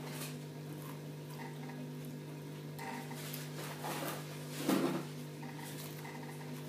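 Rummaging and clinking of fish-food containers being handled, with the loudest knock a little before five seconds in, over the steady hum of the aquarium's filters and air pump.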